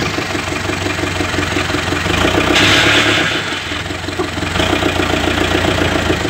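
Off-road vehicle's engine running at low speed with a steady, rapid pulsing throb. A brief louder rushing hiss comes in about two and a half seconds in.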